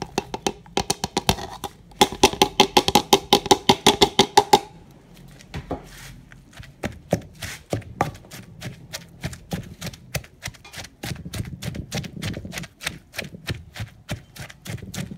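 Pestle pounding sliced shallots and spring-onion stems into a spice paste in a stone mortar, a stage of making a ground spice paste. A fast, loud run of knocks, about five a second with a slight ringing, comes about two seconds in and stops after a couple of seconds; then softer, regular pounding at about three to four knocks a second.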